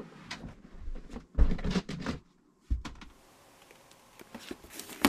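Handling of a clear plastic storage bin and the medical supplies in it. A few knocks and thumps come in the first three seconds, the loudest about a second and a half in, followed by light clicks and rustling as items are packed.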